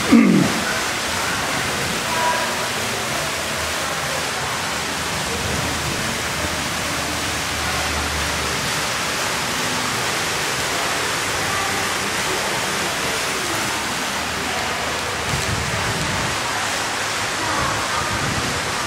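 A steady, even rushing noise, with a brief thump right at the start.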